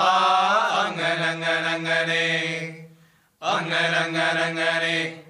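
Male voices chanting together in long held phrases: one of about three seconds, a short breath pause, then a second of about two seconds.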